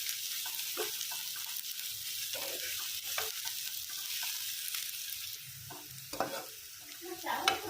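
Onions frying in hot oil on a high flame, sizzling steadily, while they are stirred in the pan with short scraping knocks. The frying is aimed at browning the onions.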